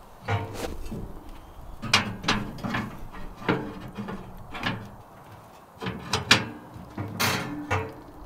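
Camp gear being handled: a run of about eight knocks and clunks, several followed by a brief ringing tone.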